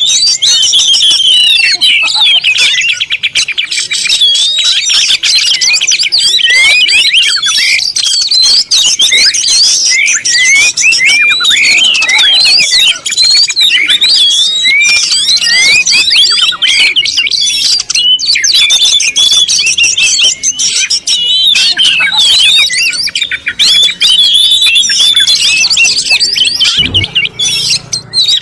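Many birds chirping at once in a dense, high-pitched chorus of overlapping calls.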